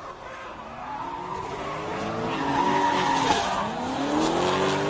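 Two drift cars sliding sideways in tandem, their engines revving up and down while the tyres screech. The sound swells to its loudest about halfway through.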